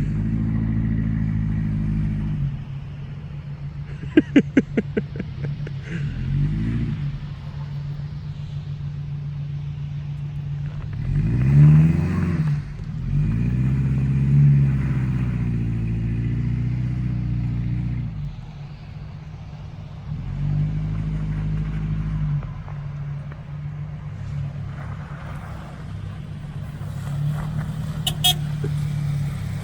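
A vehicle engine running, its pitch rising and falling several times as it revs and eases off, with the strongest rev about twelve seconds in. About four seconds in, a quick run of around eight sharp clicks.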